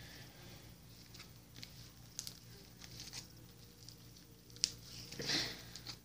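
Slime stretched and pulled between the hands, making faint sticky crackles and small pops, with one sharper snap about four and a half seconds in.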